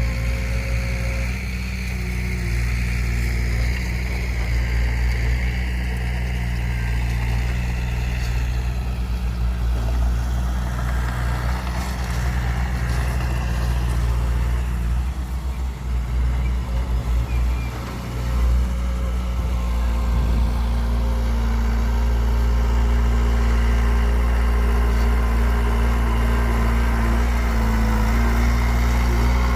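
Diesel engine of heavy earth-moving machinery running steadily, its level dipping and varying briefly around the middle.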